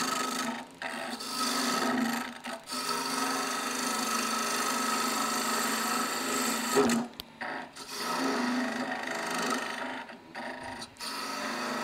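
A turning tool cutting a wood blank spinning on a wood lathe: a steady hissing, scraping shave over the lathe's running hum. The cut breaks off briefly a few times where the tool comes off the wood.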